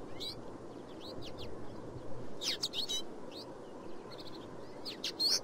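Sparrows chirping: short, high chirps in a few scattered clusters, over steady background noise.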